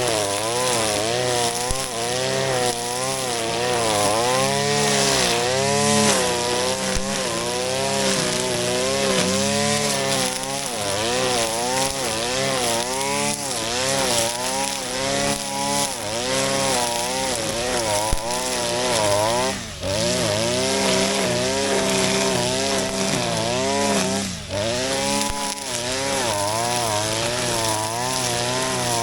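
Shindaiwa RK3026-PT brush cutter's 25.4 cc two-stroke engine running at high speed while cutting grass, its pitch dipping and recovering about once a second as the cutting head sweeps through. It eases off briefly twice in the latter half.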